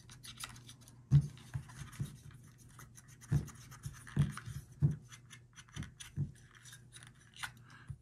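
A wooden-stick cotton swab scrubbing inside a remote control's battery compartment, mopping up leaked-battery corrosion from the contacts. It makes irregular faint scratching and scraping, with a few soft knocks as the remote and swab are handled.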